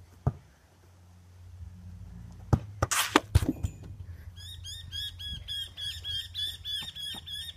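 A few sharp knocks, then a bird calling with a rapid run of repeated chirps, about four a second, starting a little past halfway.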